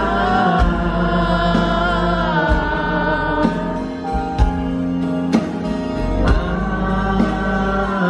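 Live band music: a male voice sings over acoustic guitar, bass and a drum hit about once a second, with the audience singing along in chorus.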